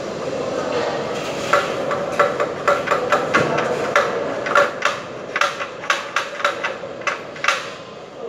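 Hand hammer striking at the wall in more than a dozen sharp, irregular taps, about two or three a second, over a steady background hum; the taps begin about a second and a half in and stop shortly before the end.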